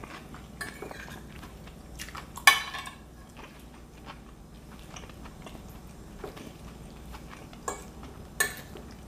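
Metal fork clinking and scraping on a plate as salad is speared, with mouth chewing of salad between. The sharpest clink, with a short ring, comes about two and a half seconds in, and two more come near the end.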